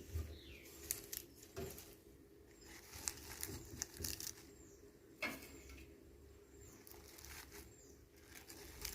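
Faint rustling and a few light knocks: fresh herb leaves being handled and dropped into a mixer-grinder jar.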